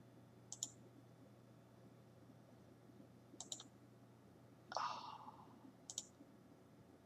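Faint computer mouse button clicks: a single click, then a quick cluster of clicks about three and a half seconds in, and another double click near the end, with a brief soft hiss about five seconds in.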